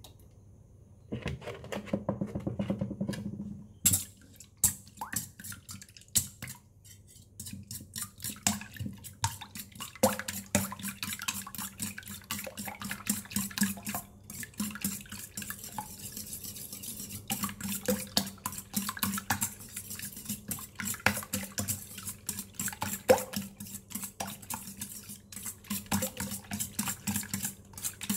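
Milk poured from a plastic jug onto raw eggs in a stainless steel bowl for a few seconds, then a fork beating the eggs, clicking rapidly against the side of the metal bowl.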